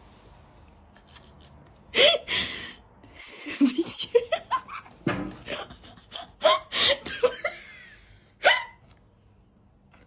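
A person laughing in a string of short, sharp, hiccup-like gasps, starting about two seconds in.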